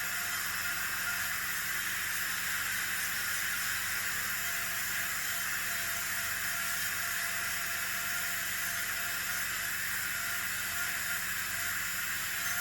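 Dental drill (handpiece) running steadily with water spray and suction during access cavity preparation on a molar: a continuous whir with a hiss.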